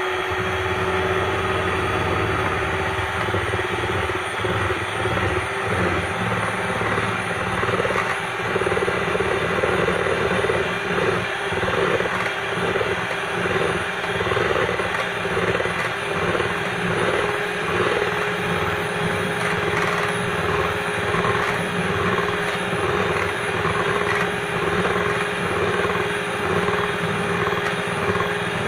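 Electric hand mixer running steadily, its beaters whipping egg whites toward the frothy stage for meringue, with a constant motor hum and a regular rise and fall in loudness.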